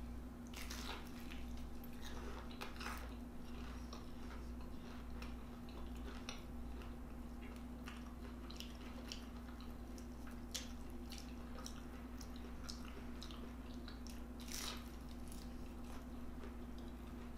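Close-miked chewing and biting of food: irregular wet smacks and crunchy clicks, over a steady low hum.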